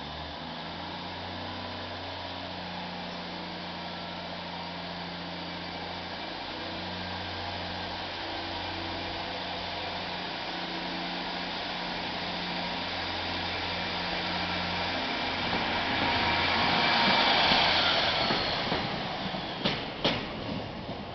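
Class 153 diesel multiple unit's underfloor Cummins diesel engine pulling away, a steady low engine note that grows louder as the train approaches. It is loudest about 17 seconds in as the railcar passes close by, and a few sharp wheel clacks come near the end.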